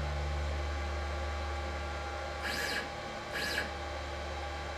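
Stepper motor driving the Z axis of a 6090 CNC router in jog mode under Mach3, a steady low drone, with two short high sweeping sounds near the middle.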